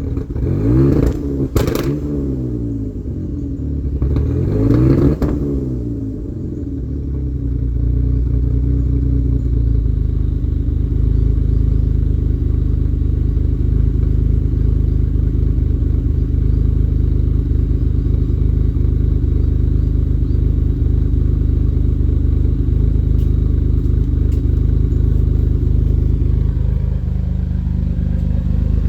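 Pontiac GTO's V8 through Varex valved mufflers, revved in quick blips near the start and again about five seconds in, then settling into a steady idle.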